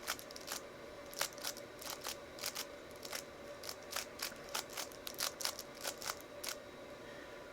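A 3x3 Rubik's cube's plastic layers being turned by hand, a string of quick, irregular clicks, a few a second, over a faint steady hum.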